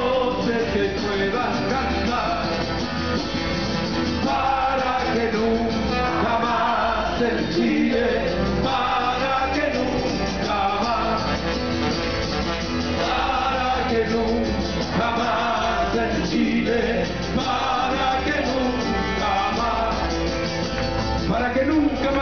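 Live band performing a song: a man singing over guitar and band accompaniment, carried over a big outdoor sound system.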